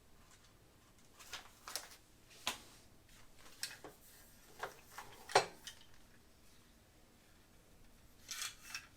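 Scattered light clicks and taps of parts being handled, with one sharper knock about five seconds in and a brief rustle near the end.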